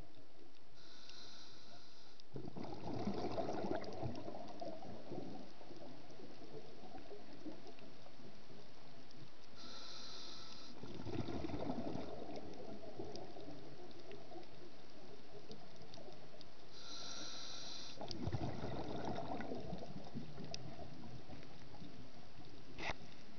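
Scuba diver breathing through a regulator underwater: three breaths about eight seconds apart, each a short hiss of inhalation followed by a longer burst of exhaled bubbles gurgling up past the regulator.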